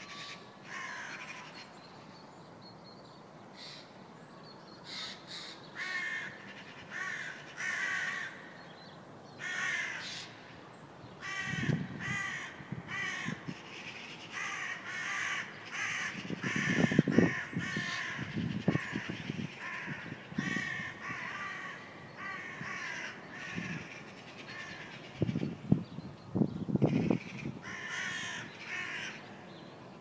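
A flock of crows calling: many short, repeated caws from several birds at once, busiest in the middle stretch. A few louder low rumbles come in around the middle and again near the end.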